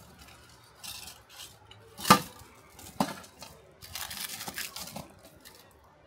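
Metal clinks and knocks from handling the casting flask and tools while opening up the mould: a few light taps, a sharp clank about two seconds in and another about a second later, then a couple of seconds of denser clatter.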